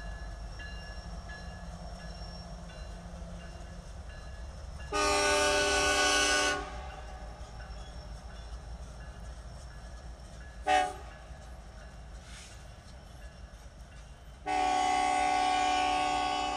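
BNSF freight diesel locomotive's multi-chime air horn: a long blast about five seconds in, a brief toot near eleven seconds, and another long blast starting near the end. Under it all is a steady low rumble.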